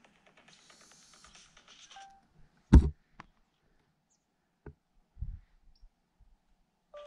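A loud dull knock about a third of the way in, then two lighter clicks and a short low thump, with little else heard between them.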